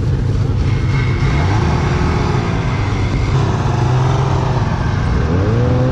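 Ski-Doo Summit snowmobile engine running at low speed, rising in pitch as it accelerates about five seconds in.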